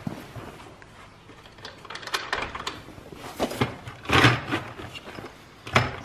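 Fishing seat box's extendable footplate being handled and pulled out, with rattles and several hard clacks of the frame, the loudest about four seconds in and another near the end.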